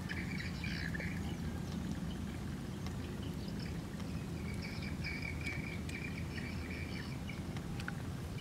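Small birds chirping in short runs, twice, over a steady low rumble.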